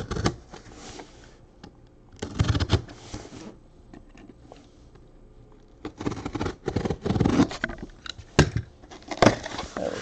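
Utility knife slicing through the packing tape on a sealed cardboard case in several short strokes, then the cardboard flaps being pulled open near the end.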